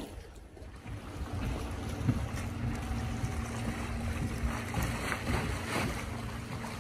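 Motorboat running at speed across open water, its engine a steady distant drone, with wind buffeting the microphone and a brief bump about two seconds in.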